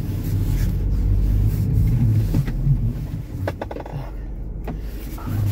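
Steady low rumble of a Geely Atlas Pro's cold engine heard inside the cabin as the car creeps away at low speed, with a few light knocks about halfway through. The driver feels the robotised gearbox's clutch slipping on this pull-off while the engine is still cold.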